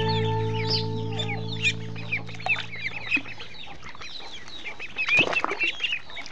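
Ducklings peeping: many short, high calls that overlap and fall slightly in pitch, growing busier after about five seconds. A guitar chord fades out under them over the first three seconds or so.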